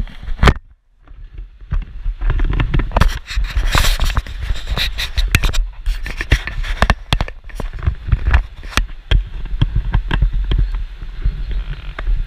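Close handling noise on the action camera: fingers knocking and rubbing on the camera housing, a dense run of clicks and scrapes over a low rumble, with a brief lull about a second in.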